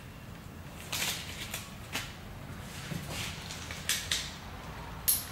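Scattered brief rustles and clicks of hands handling things at a workbench, about one a second, over a low steady hum.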